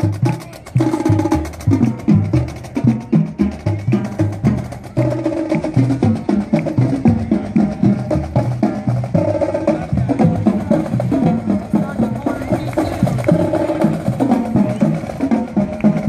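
Marching band drumline playing a street cadence: a steady beat of sharp stick and snare hits over runs of tuned bass drum notes.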